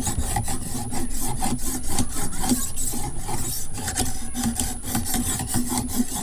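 Rod-mounted fine diamond sharpening stone stroked rapidly back and forth across a clamped knife blade in a guided sharpening system, at a slightly steeper angle set to sharpen the edge.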